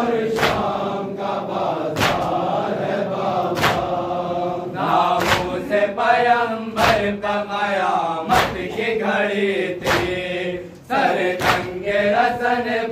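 A group of men chanting a nauha, an Urdu lament, in unison, keeping time with matam: sharp chest-beating slaps about every one and a half seconds.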